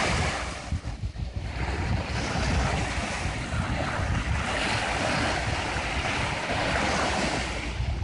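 Small waves breaking and washing up on a sandy shore in a steady, surging wash, with wind buffeting the microphone. The surf dips briefly about a second in, then swells again.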